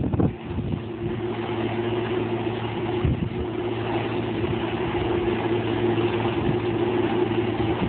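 Claas Medion 340 combine harvester running steadily under harvesting load, a constant engine and machinery hum. Wind buffets the microphone briefly at the start.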